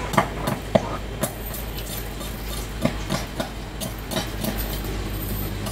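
Irregular sharp taps and knocks of a blade working a wooden knife handle on a wooden stump, over a steady low hum.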